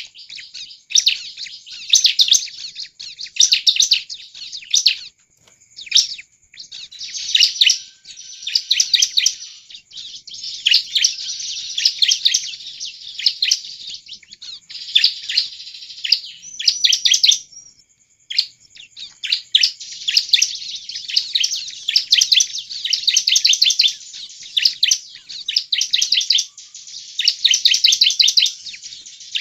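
Bar-winged prinia (ciblek) singing: rapid, high, chattering trills in bursts of one to two seconds, with only short pauses between them.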